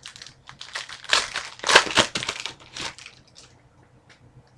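Crinkling of a trading-card pack wrapper and cards being handled, a dense run of crackles loudest in the middle that thins out near the end.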